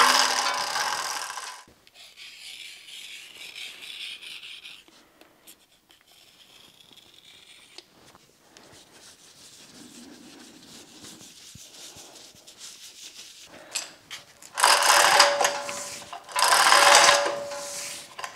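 Hand-chain hoist being hauled to lift a heavy cast-iron milling machine knee: the chain rattles through the hoist in bursts of pulls, once at the start and three times near the end, with quieter rubbing and scraping between.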